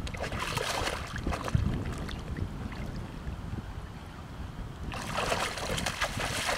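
Yellow Labrador splashing in shallow water with its head under the surface, nosing about on the bottom. Near the end it lunges out with a louder burst of splashing. Wind rumbles on the microphone throughout.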